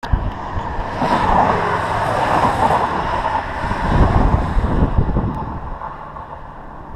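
Wind buffeting the microphone, with a car passing close by: its tyre and engine noise swells to a peak about four seconds in, then fades away.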